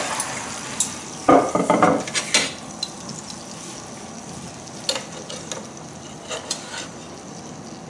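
Chicken and soy-sauce reduction sizzling quietly in a frying pan, with sharp clinks and knocks of kitchenware being handled, a cluster of them between one and two and a half seconds in and a few single ones later.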